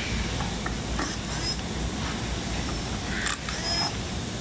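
Faint clicks and scrapes of a small screwdriver backing screws out of a toy fire truck's plastic body, over a steady background hiss and hum.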